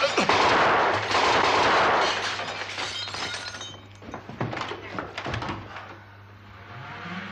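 A loud crash of glass shattering and things breaking, lasting about four seconds, then a few sharp knocks.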